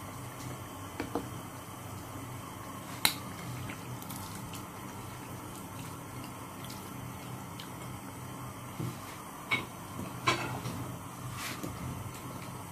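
Kitchen cooking sounds: a steady low hum with a handful of sharp clicks and knocks scattered through, the loudest about three seconds in and just after ten seconds.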